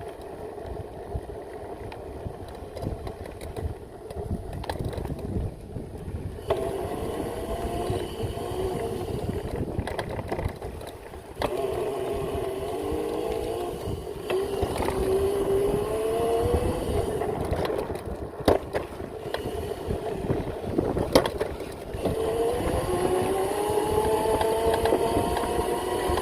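Electric pit bike's upgraded 5000 W motor whining, rising in pitch three times as the bike speeds up, over a steady low rumble. Two sharp knocks come in the second half.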